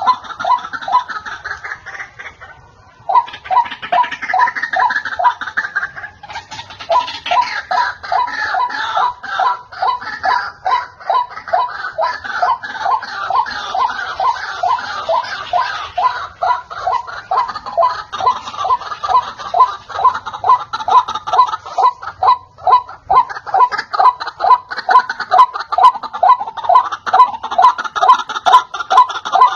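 White-breasted waterhen calling, a fast, unbroken run of the same harsh note repeated several times a second, with a short break about three seconds in.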